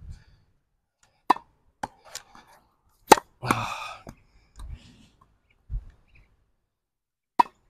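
Tennis ball struck with a racket on an outdoor hard court during a self-fed one-handed backhand: a few short, sharp ball impacts, the loudest and crispest about three seconds in, and another single knock near the end.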